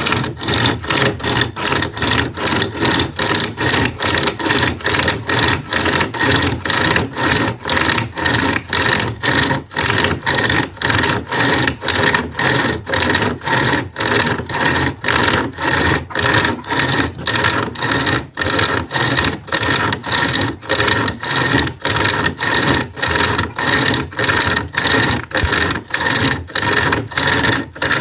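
SOG 36-inch pocket chainsaw, a length of chainsaw chain with handles, pulled back and forth through a wooden 4x4: a steady rasping cut at about two strokes a second.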